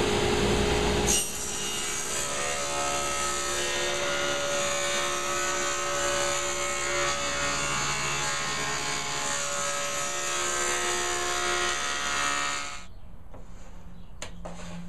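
Electric hand sander running steadily on a plywood panel, with a few fixed motor tones over the sanding noise; it stops suddenly about two seconds before the end.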